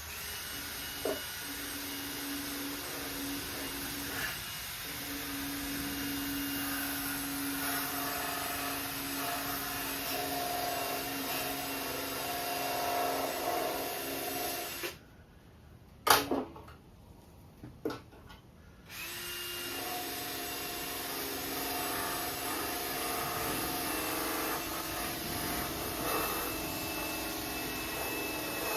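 Power-tool wire wheel spinning and scrubbing a steel oil pan clean, a steady whir that cuts out for about four seconds in the middle, with one sharp knock, then starts up again.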